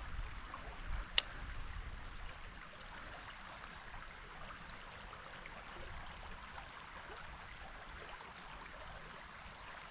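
Creek water running steadily, with a single sharp click about a second in.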